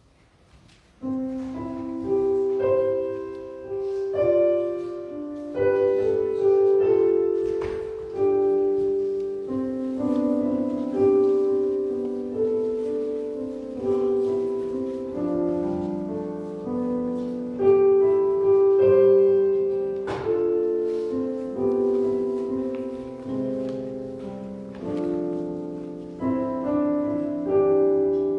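Solo piano playing slow offertory music, starting about a second in after a brief hush; each note or chord is struck and fades away.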